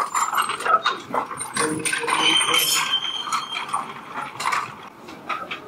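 Row of metal Tibetan prayer wheels being spun by hand, the cylinders rattling and clicking on their spindles, with a brief high whine a little past two seconds in.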